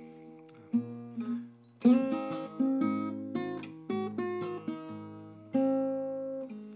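Small-bodied acoustic guitar in drop-D tuning, fingerpicked: a run of single plucked notes and chord tones over bass notes, each ringing and fading before the next.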